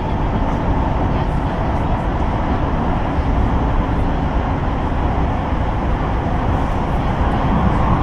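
Steady running noise inside the carriage of a Kawasaki C151 metro train travelling at speed through a tunnel: a loud, even rumble of wheels and running gear.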